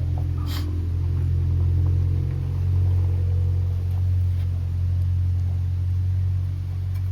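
Steady low rumble, with a sharp click about half a second in.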